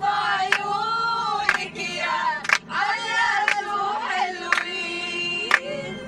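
A group of men and women singing a folk song together. A sharp percussive beat strikes about once a second.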